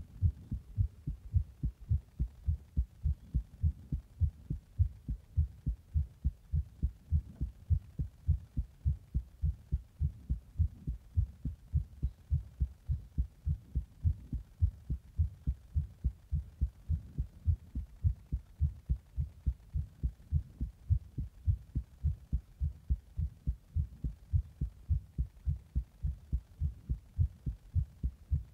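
A human heartbeat, recorded close up, beating steadily in low, even thumps, about three a second. It is the uploader's heart after drinking a Monster energy drink in the bath and applying pressure, presented as a strained heart.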